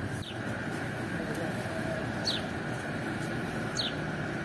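Three short, high, falling bird chirps over a steady background hum and hiss.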